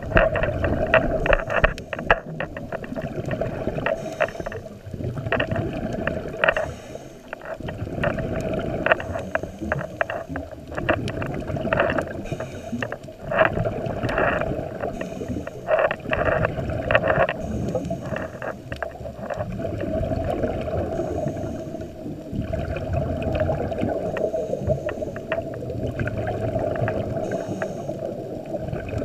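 A scuba diver breathing through a regulator, heard underwater: repeated bubbling, crackling bursts of exhaled air venting from the regulator, over a steady muffled hum.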